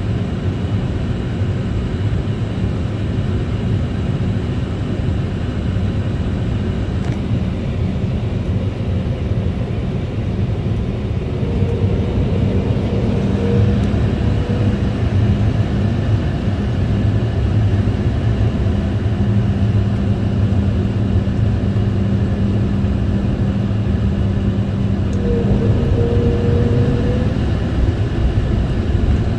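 Cabin noise inside an Embraer 190 airliner: a steady rumble of its GE CF34 turbofan engines and airframe. A steady hum joins about twelve seconds in and the sound grows a little louder, with two brief higher tones, one near the start of that rise and one near the end.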